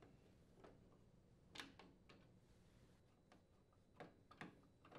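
Near silence broken by about seven faint, short clicks of a Phillips screwdriver working the screws on a freezer's metal base grill.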